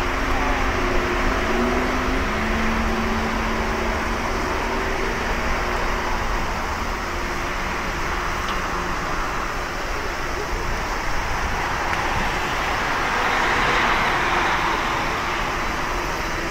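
Boeing 787 turbofan engines at takeoff thrust on the takeoff roll: steady jet noise with a humming tone that steps up in pitch about two seconds in as the engines spool up.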